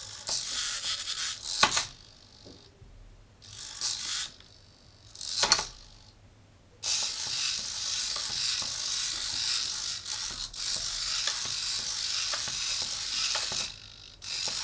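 Small hobby servo motors in the legs of an Otto DIY biped robot whirring in short bursts as it steps and sways, then in one long run of several seconds through the middle. Two sharp clicks stand out, about a second and a half in and again about five and a half seconds in.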